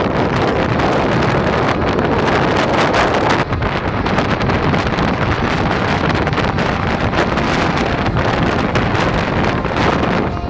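Gale-force blizzard wind blasting the microphone: a loud, steady rush that rises and falls in gusts.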